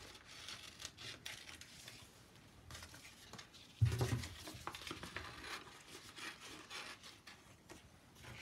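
Scissors snipping through paper, with the paper rustling as it is handled, and a thump about four seconds in.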